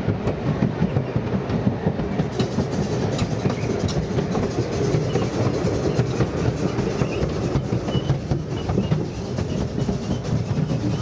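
Narrow-gauge railway train running along the track, heard from aboard: a steady rumble with a constant clatter of wheels over the rails.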